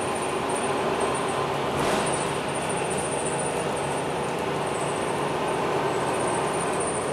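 Cabin noise inside a MAN NL323F A22 bus on the move at low speed: steady engine and road rumble, with a faint steady high whine above it. There is a brief louder rush about two seconds in, as another bus passes alongside.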